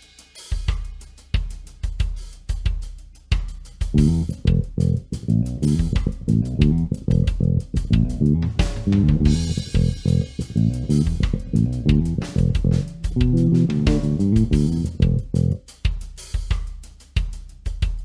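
Gretsch G2220 Junior Jet II short-scale electric bass with single-coil pickups, played fingerstyle in a steady run of notes. The tone is dark and muffled, with little heard above the low notes, over a drum beat.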